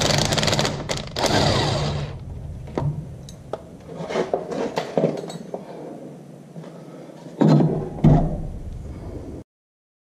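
Cordless impact wrench running on a bolt for about two seconds with a brief pause, then scattered metallic clinks and knocks of tools and parts, with two loud knocks near the end before the sound cuts off abruptly.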